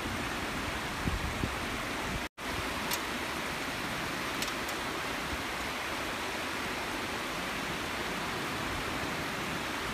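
Steady, even rushing noise, broken by a brief dropout about two seconds in.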